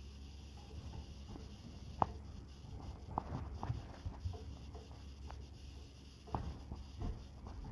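Scratchy rustling and scattered light clicks of a phone rubbing against hair and bedding at close range, the sharpest click about two seconds in, over a steady low hum.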